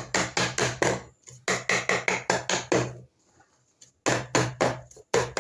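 Rapid, sharp knocks, a hard object struck repeatedly against a surface about five times a second, in three runs with short pauses between them.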